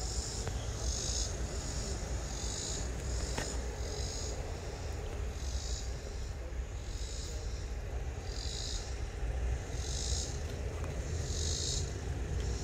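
Insects chirping in short, high buzzy pulses about once a second, over a steady low rumble.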